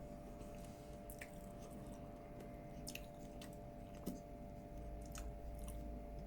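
A person chewing crispy fried chicken, faint, with a few short sharp clicks and crunches scattered through it.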